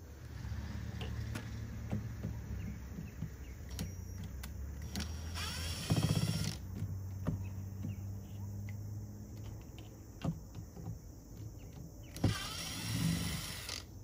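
Cordless drill backing out the screws of an RV door lock: its motor whirs in two short bursts, rising in pitch, about five and a half seconds in and again about twelve seconds in, with small clicks of the bit and screws between. A steady low hum runs underneath.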